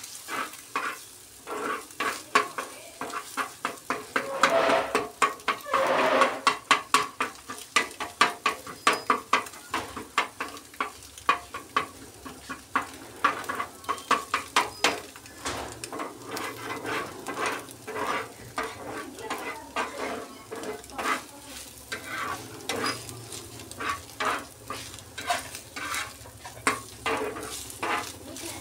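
Metal spatula scraping, chopping and tapping on a hot tawa griddle in rapid, repeated strokes as scrambled egg bhurji is stirred, over a steady sizzle of the eggs frying.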